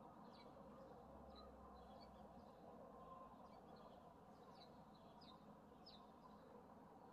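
Faint, scattered short high chirps from birds, some notes dropping in pitch, over a low steady background hum.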